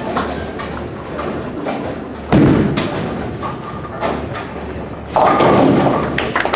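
A bowling ball thuds onto the lane about two seconds in and rolls. About three seconds later it crashes into the pins, a clatter lasting about a second, over the steady din of the bowling alley.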